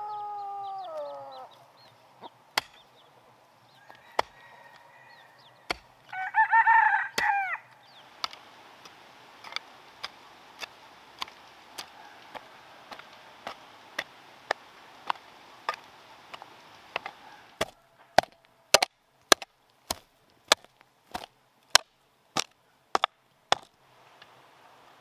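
A rooster crows about six seconds in, the loudest sound, after the tail end of another crow at the start. Between and after, a hoe chops into dry, clumpy soil, sharp knocks in a steady rhythm of one to two a second that stop shortly before the end.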